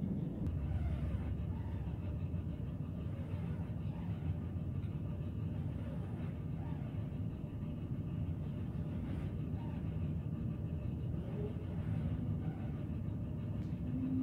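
Steady low rumble of background noise, even throughout, with faint higher sounds coming and going above it.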